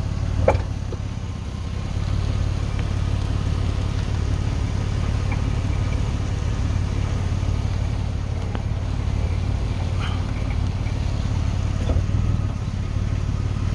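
Vehicle engine idling steadily, a low even rumble, with one short sharp knock about half a second in.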